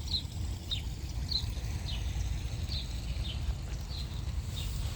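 A bird chirping over and over, short high chirps about every half second, over a steady low rumble.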